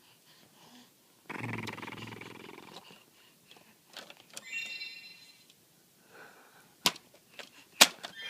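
A dog's low, drawn-out grumbling groan about a second in, then a brief high-pitched whine, and two sharp knocks near the end.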